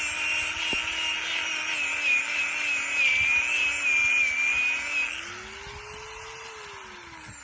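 Angle grinder, slowed by a speed controller and fitted with an 80-grit Manpa 2 hook-and-loop sanding disc, sanding a wooden root bowl with a steady motor hum under a loud gritty scouring. About five seconds in the disc comes off the wood: the sanding stops, the motor's pitch rises, then sinks as it winds down.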